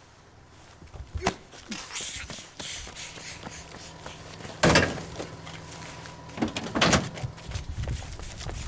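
Heavy thuds and knocks as a big round weight is lifted off the tarmac and carried to a pickup truck's open tailgate, the loudest thud a little past halfway and two more about two seconds later. Near the end a low rumble comes in.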